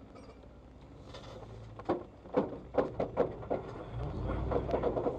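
A run of sharp knocks and clunks from a Jeep Cherokee XJ flexing over rough ground, followed near the end by a low rumble with further knocks. The knocking is taken for the tire hitting the fender.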